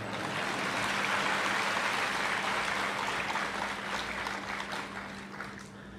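A large audience applauding: many hands clapping together, which gradually fades away in the last couple of seconds.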